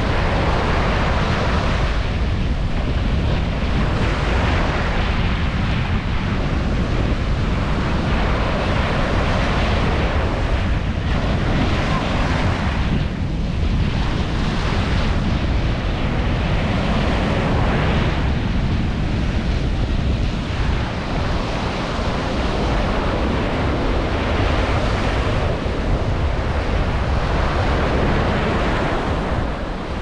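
Small ocean waves breaking and washing up the sand, the surf hiss swelling and falling back every few seconds. Heavy wind buffeting on the microphone adds a constant low rumble.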